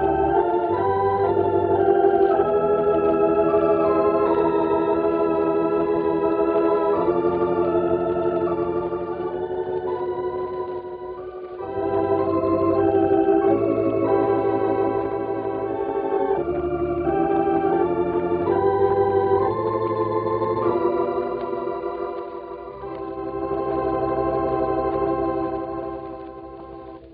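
Organ playing a baseball medley: sustained chords with a melody over held bass notes. It eases off briefly between phrases and dies away at the end.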